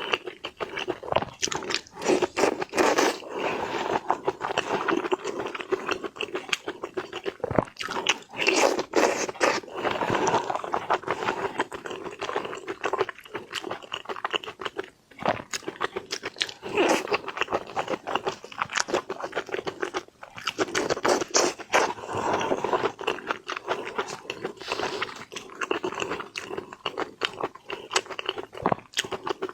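Close-miked eating of seafood: steady chewing and crunching, with many sharp, irregular crackles and wet smacks.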